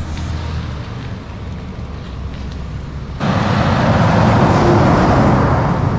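Highway traffic noise: a motor vehicle rushing past on the road, much louder from about three seconds in, over a lower steady road rumble before it.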